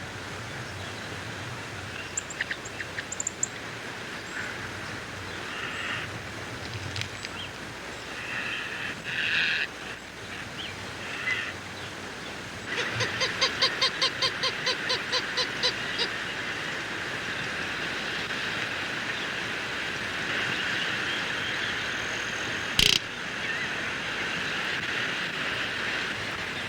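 Greater roadrunner calls over a steady outdoor hiss: scattered short notes, then a little past the middle a run of about a dozen quick, evenly spaced pitched notes lasting about three seconds. A single sharp click sounds near the end.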